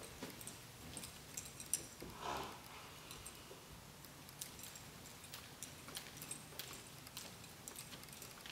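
Faint footfalls of an Appaloosa mare walking on soft dirt arena footing, with light clicking and clinking of halter and lead hardware. A short breathy noise comes a little after two seconds in.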